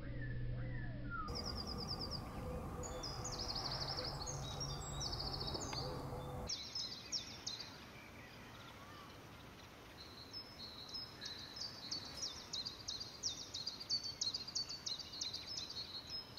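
Birds calling: repeated high chirps and short falling trills over a low outdoor rumble. The rumble and calls cut off abruptly about six seconds in, and a fresh run of rapid high chirps follows in the second half.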